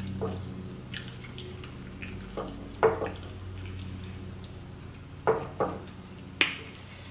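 Close-up eating sounds: about half a dozen short wet smacks and clicks of lips and mouth while chewing chicken wings, the loudest nearly three seconds in. A steady low hum runs underneath.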